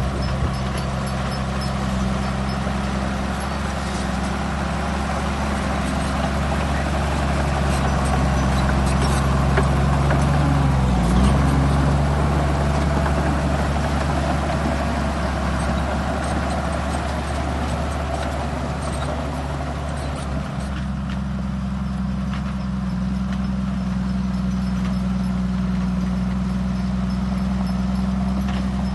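Diesel engine of heavy earthmoving machinery running steadily, with a clattering noise that grows louder through the middle. The engine note dips briefly about a third of the way in.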